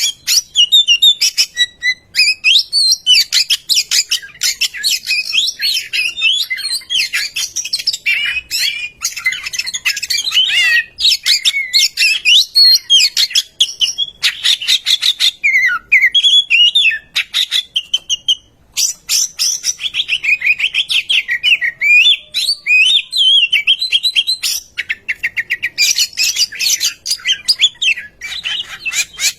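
Oriental magpie-robin singing: a loud, nearly continuous run of varied whistles, chirps and fast trills, with a brief pause a little past the middle.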